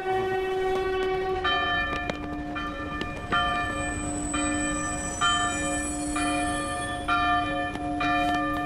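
Train horn sounding one long continuous blast. About a second and a half in it drops to a lower chord, and brighter notes break in and out over it.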